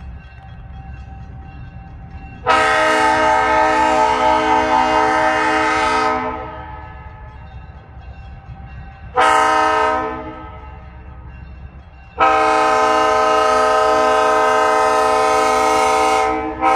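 An approaching diesel locomotive's air horn sounds three blasts, long, short, then long, over the low rumble of the train between blasts.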